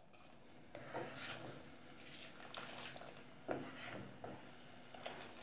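A spatula stirring, scooping and scraping around a pot of boiling sugar syrup, in irregular scrapes with a few light knocks against the pot.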